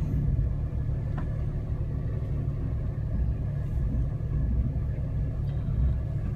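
Off-road vehicle engine running steadily at low revs: a continuous low rumble with no revving.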